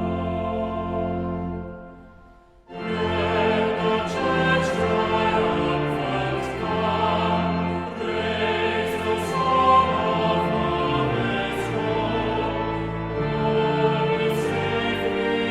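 Classical-style choral music. One piece fades out about two seconds in, and after a brief gap another begins with sustained voices.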